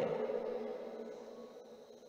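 Faint echo of a man's speaking voice and room hiss dying away, fading steadily over about two seconds to silence.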